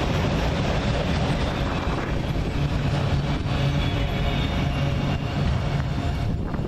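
A train going by: a loud, steady rumble and rail noise, with a low steady engine hum through the middle.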